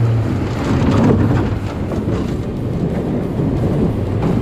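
Water rushing and splashing against a small aluminium boat's hull as it pitches through breaking waves, with irregular knocks and slaps, heaviest in the first couple of seconds. The outboard's steady hum drops away near the start.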